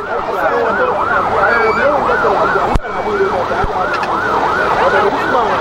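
Vehicle siren in yelp mode, wailing up and down quickly, about three sweeps a second. There is a single sharp click a little before the middle.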